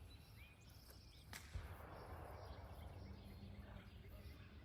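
Quiet outdoor ambience with a few faint bird chirps and a single sharp knock about a second and a half in.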